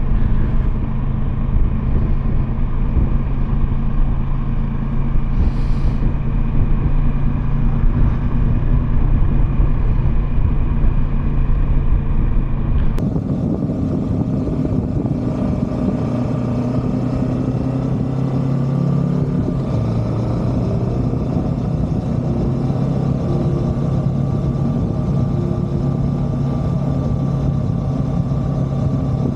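Kawasaki Versys 650 parallel-twin motorcycle engine running steadily, with low wind rumble. The sound changes abruptly about thirteen seconds in, becoming brighter and less rumbly.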